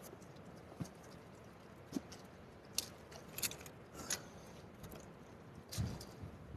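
Sparse handling noises: about seven short clicks and knocks a second or so apart, the loudest a dull knock near the end.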